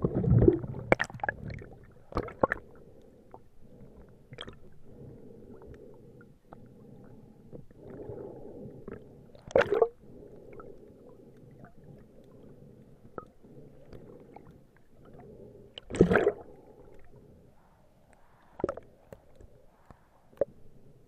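Underwater sound of a diver's exhaled air bubbling past the camera three times: near the start, about ten seconds in and about sixteen seconds in. Small clicks and knocks are scattered over a low steady rushing noise.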